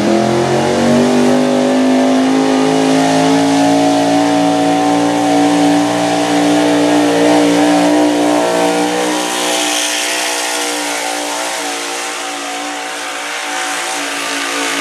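Modified gasoline pickup truck engine held at high revs under full load while pulling a weight-transfer sled. The pitch climbs in the first second, then holds as a loud, steady drone through the pull.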